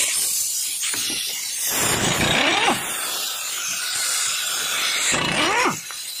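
Pneumatic impact wrench running in two bursts, about two seconds in and again near the end, its whine rising as it spins up, loosening the brake caliper bolts.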